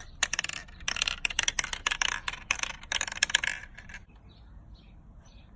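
Marbles clattering down through a marble maze toy: a rapid run of clicks and rattles for almost four seconds, then only a few faint ticks.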